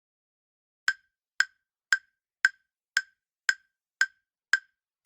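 Countdown timer sound effect: sharp, bright clock-like ticks, about two a second, starting about a second in and counting down the answer time.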